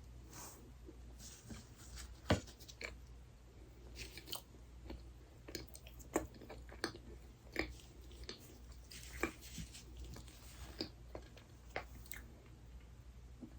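A person chewing dessert, with scattered small wet clicks and crunches from the mouth; the sharpest click comes about two seconds in.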